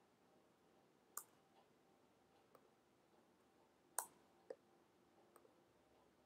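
About five faint, sharp clicks from working at a computer, spaced irregularly and the loudest about four seconds in, over near-silent room tone.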